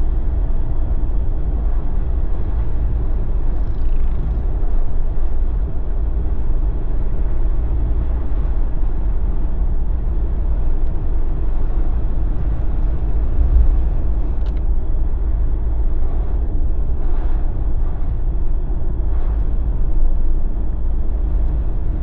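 Steady low rumble of a Jeep driving on a winter road: engine and tyre noise with no change in speed.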